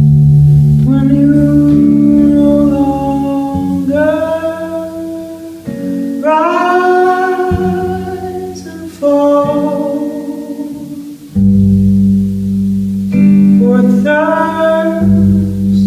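A woman singing a slow song, accompanying herself on a strummed and plucked acoustic guitar, with long held vocal notes over the guitar.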